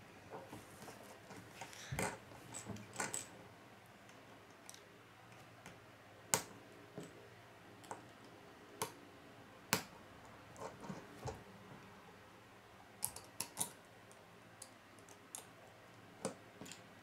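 Small plastic Lego pieces clicking and snapping as they are pressed together by hand onto a tiny model, with scattered sharp clicks a second or so apart and a few close together about two-thirds of the way through.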